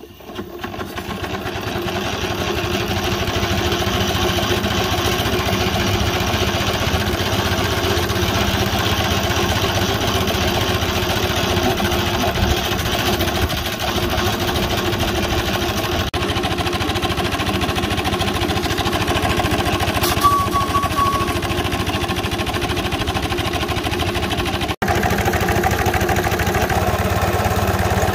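3-inch scale Burrell live-steam traction engine set going by a turn of its flywheel, its running sound building quickly over the first two seconds and then going steadily as the engine drives along.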